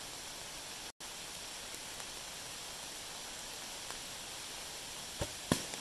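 A longbow shot: the string released with a sharp snap, then about a third of a second later a louder pop as the arrow bursts the red balloon. Both sound over a steady hiss of running stream water and light rain.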